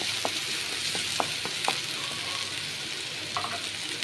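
Chopped onion, capsicum and tomato frying in oil in a pan with a steady sizzle, while a spoon stirs in the just-added turmeric and coriander powder, knocking against the pan several times.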